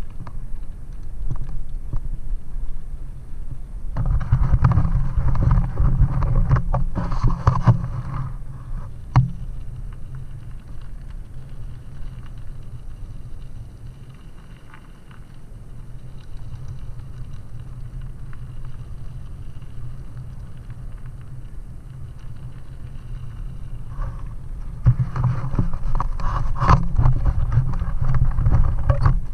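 Bicycle riding over a loose gravel trail, heard from a helmet-mounted camera: wind rumbling on the microphone, with tyres crunching and the bike rattling over stones. It grows louder and rougher for a few seconds after about four seconds in and again near the end, with a couple of sharp knocks from bumps.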